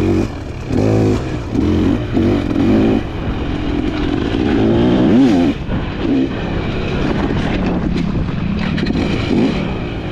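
Off-road dirt bike engine revving in short throttle bursts, rising and falling in pitch, then running more steadily in the second half.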